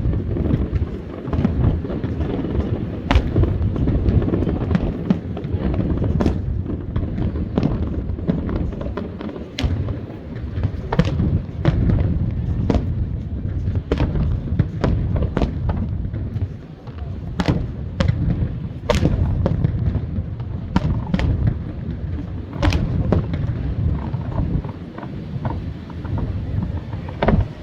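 Aerial fireworks display: a rapid, irregular string of sharp bangs over a continuous low rumble of shell bursts.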